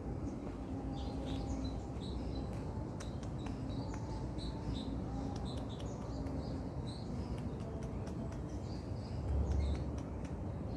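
Small birds chirping in short, high calls scattered throughout, over steady low background noise, with a brief low rumble near the end.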